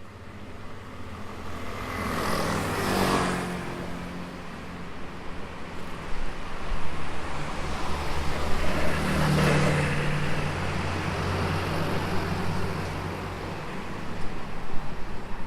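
Road traffic at the roadside: one vehicle passes about two seconds in, its engine tone falling as it goes by, and another passes about nine seconds in. Steady low wind buffeting on the microphone runs underneath.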